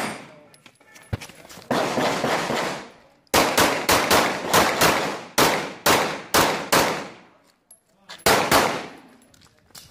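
CZ 75 Shadow pistol firing, each shot echoing: a single shot about two seconds in, then a fast string of about ten shots, then a quick pair near the end.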